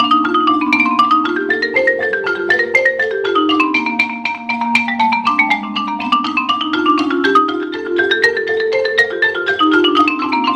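Concert marimba played with mallets in both hands: fast runs of struck wooden-bar notes in two lines that climb and fall in repeated waves.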